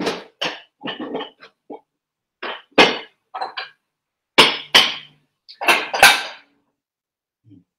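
Dishes and cookware knocking and clattering together as they are moved about in a low kitchen cupboard: a string of sharp clanks, the loudest about three, four and a half and six seconds in.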